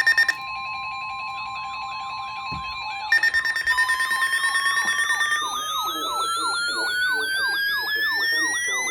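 Emergency Alert System tones: buzzy digital data bursts (the SAME header) and a steady single-pitch alert tone, overlaid with an electronic siren yelping about three times a second. About four seconds in, a second siren tone begins gliding steadily upward in pitch.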